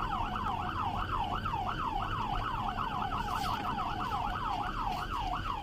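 Police patrol car siren on its fast yelp setting, rising and falling about four times a second, over low road and engine rumble from the moving cruiser.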